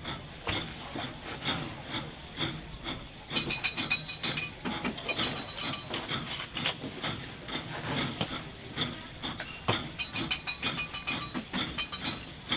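Frozen Coca-Cola slush being scraped and worked with a utensil: rapid, rasping scraping strokes and clicks, in two quick runs about three seconds in and again about ten seconds in.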